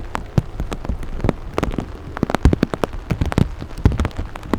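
Rain: large drops striking a hard surface close to the microphone as a dense run of irregular taps, over a low rumble.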